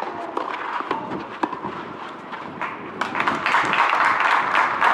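Tennis rally on a clay court: racquet strings striking the ball and shoes scuffing on the clay, heard as sharp irregular knocks. About three seconds in, a spell of spectator applause rises and goes on nearly to the end.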